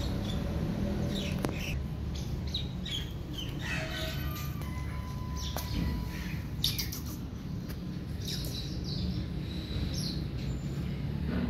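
Small birds chirping in short, scattered calls, some falling in pitch, over a steady low background hum.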